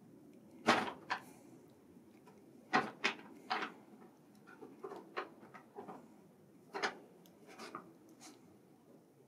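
Brown paper bag crinkling and rustling in short, irregular bursts as a kitten climbs in and moves around inside it.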